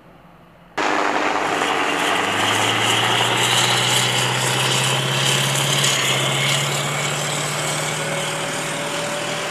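An AAV7 amphibious assault vehicle's diesel engine is running hard under load as the tracked vehicle climbs up the beach close by, its tracks churning through the sand. The sound starts suddenly about a second in. The engine note rises slightly a second or so later and again near the middle.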